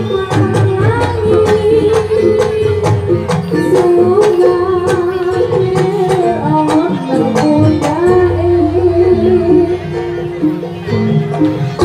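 Jaranan accompaniment music played live: drums beaten in quick strokes under a long, wavering melody line that is held almost without a break.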